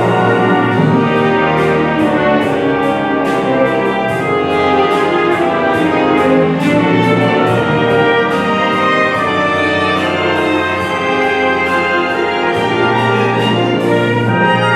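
Symphony orchestra playing live with the brass section prominent (trumpets and trombones over the strings), carried by a regular percussion beat.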